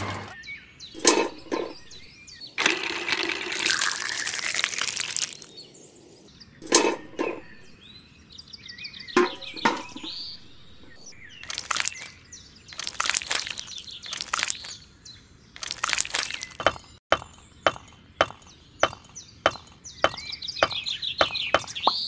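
Small handling sounds of miniature bricklaying: scrapes and swishes of wet mortar worked from a small metal bucket, then, from about two-thirds of the way in, a run of short sharp clicks, about two a second, as tiny bricks are set into place.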